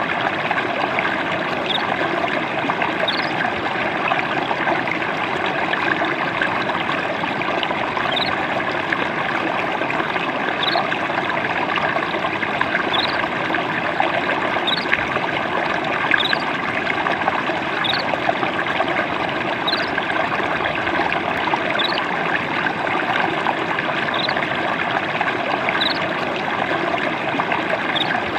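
Gentle flowing water trickling and babbling steadily over stones in a small stream, with faint short high chirps recurring every two seconds or so.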